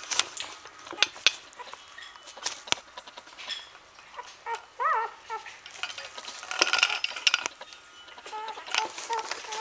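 Newborn standard poodle puppies squeaking and grunting in a heap, with one short squeal about five seconds in and a few small squeaks near the end, among soft clicks and rustles from the wriggling pups.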